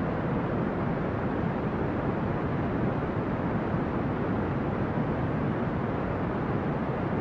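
Steady brown noise: an even, deep rushing hiss, heaviest in the low end, with no change in level.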